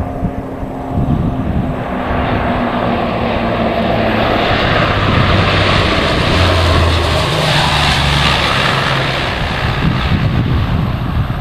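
Cessna 414's twin piston engines and propellers on landing approach, growing louder as the plane flies low past and flares over the runway, the engine tone dropping in pitch as it goes by.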